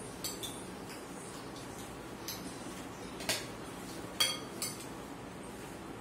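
Spoons and dishes clinking during a meal: a few short, sharp clinks at irregular intervals, the loudest about three and four seconds in.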